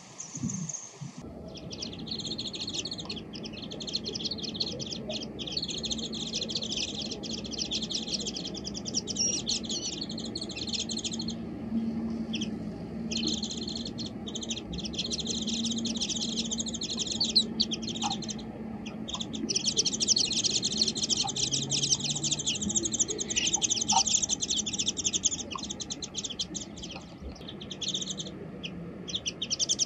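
Small wild songbirds chirping rapidly and continuously in long chattering runs with brief pauses.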